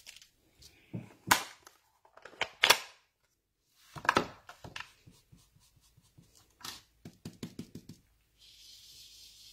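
Hard plastic clicks and clacks as a stamp ink pad case and a blending brush are handled, then a quick run of light taps, and from near the end a steady soft scratchy hiss of a blending brush rubbing ink onto card stock.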